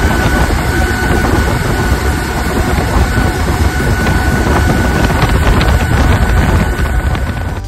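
Boat running at speed under a homemade electric outboard (a HyPer9 electric motor on a Johnson outboard lower unit): steady rushing of wind on the microphone and churning wake. A thin high whine fades out about three seconds in.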